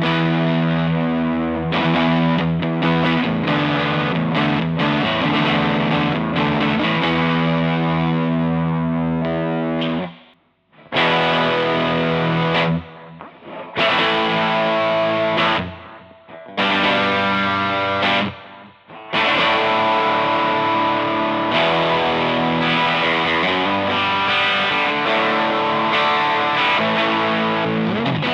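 Harley Benton TE-52 Telecaster-style electric guitar played with distortion, ringing chords and riffs. It stops abruptly about ten seconds in, plays a few short phrases with brief breaks, then carries on without pause.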